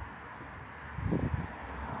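Street ambience: a steady hiss of distant road traffic, with a few low thuds about a second in.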